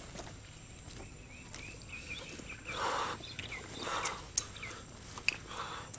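Animal calls: a quick run of short, high bird chirps, followed by three short, lower calls about a second apart.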